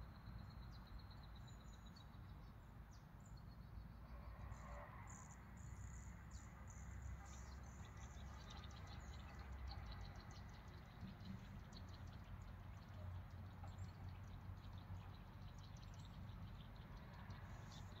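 Faint outdoor nature ambience: a low steady rumble of wind, with high insect chirps and rapid trills.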